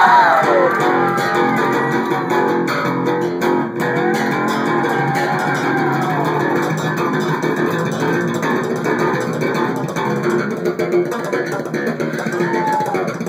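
Electric bass guitar played solo through an amplifier: a dense run of notes, with high notes sliding down in pitch at the start and gliding again near the end.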